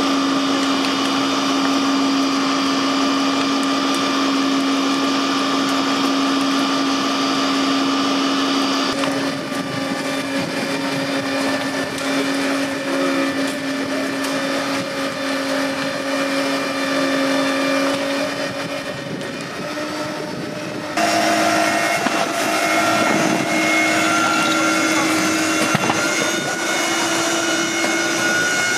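Fire engine's engine and water pump running steadily, a continuous mechanical hum that shifts slightly in pitch about nine seconds in and again, louder, about twenty-one seconds in.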